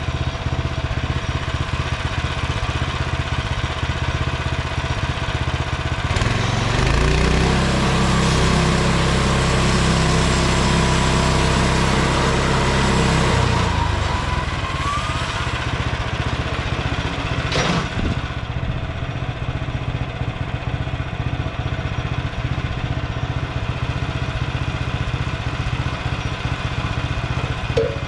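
Small gasoline engine of a Frontier OS23 bandsaw mill running steadily, revved up for about seven seconds in the middle and then dropping back to idle. A single sharp knock comes a few seconds after it settles.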